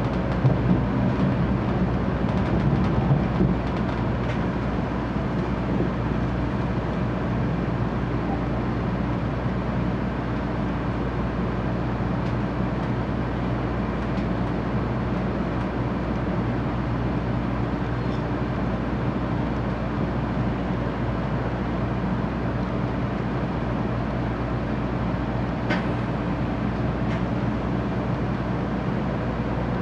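Steady running noise inside a 700 Series 7000 (Rail Star) Shinkansen car: a low rumble and hum with a few faint clicks, as the train runs into a station to stop.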